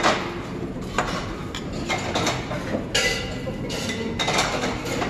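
Tableware at a meal: metal chopsticks, spoon and dishes clinking and clattering, a short clatter about once a second, one with a brief ring about three seconds in.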